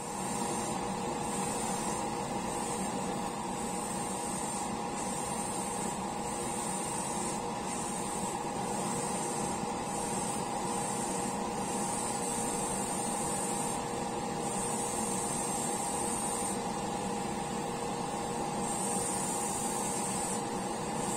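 Airbrush spraying, its high hiss of air cutting in and out every second or so as the trigger is worked, over a steady motor hum.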